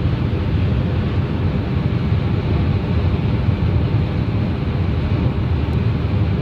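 Steady road noise of a car moving along a highway, heard from inside: a low tyre and engine rumble with some wind hiss.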